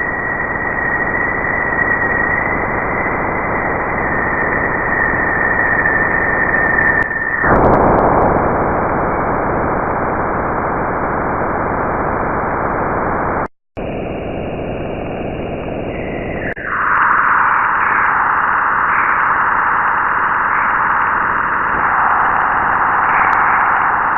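Jupiter radio and plasma-wave signals recorded by NASA's Juno probe and played back as sound: a loud, steady rushing hiss with a faint high tone that stops abruptly about seven seconds in. After a brief dropout about halfway, the hiss comes back brighter and higher-pitched.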